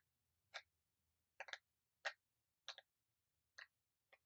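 Blue hexagon silicone pop-it fidget toy having its bubbles pressed one after another on its loud side: a string of sharp pops, about one every half to two-thirds of a second, some of them doubled.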